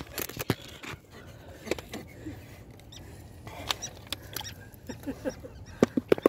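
Handling noise from a phone held close to its microphone: scattered clicks and knocks, busiest and loudest near the end.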